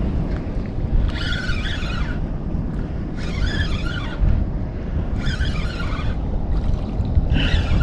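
A fishing reel is cranked in four short spurts of whirring a couple of seconds apart as a hooked fish is reeled in, over a steady rumble of wind on the microphone.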